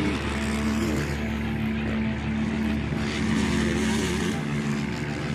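Dirt bike engines running, with their pitch wavering up and down as they rev, over a steady rushing noise.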